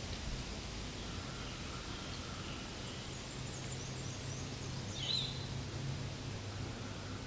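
Steady outdoor background hiss with faint high bird chirps in the middle and one brief, louder chirp about five seconds in.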